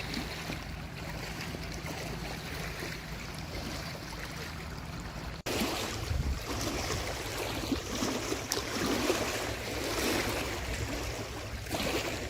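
Creek water rushing steadily, with wind on the microphone. About five seconds in the sound cuts out for an instant and returns louder and rougher, with a few sharp ticks.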